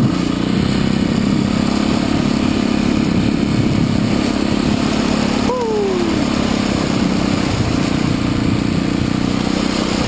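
Trail bike engine running at steady revs while being ridden. About halfway through, a short tone falls in pitch.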